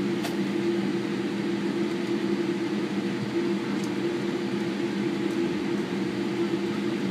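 Steady airliner cabin hum while the jet slowly taxis, with the engines at low power: an even hiss under two low, steady humming tones.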